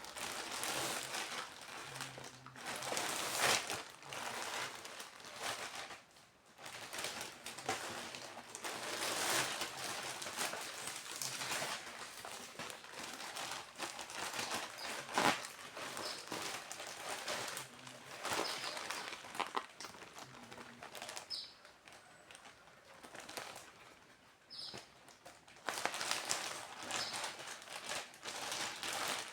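Plastic packaging rustling and crinkling in irregular bursts as it is handled and opened, with a few faint short squeaks.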